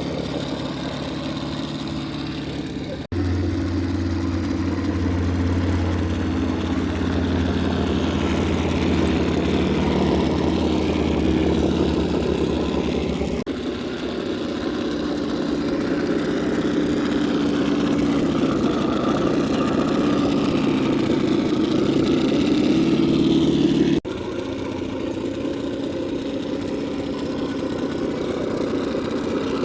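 Radio-controlled Axial SCX10 II crawler's electric motor and geartrain whining steadily as it crawls, the pitch wavering slightly with throttle. The sound breaks off abruptly and resumes at a slightly different pitch about three, thirteen and twenty-four seconds in.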